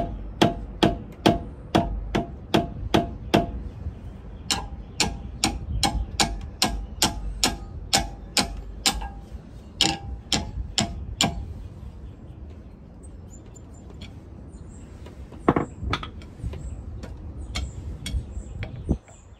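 Hammer tapping on a screwdriver wedged between the brake pad and rotor, about three light metallic taps a second, knocking the brake caliper back. The tapping breaks off briefly, runs on until about eleven seconds in, then thins out to a single sharp knock a few seconds later.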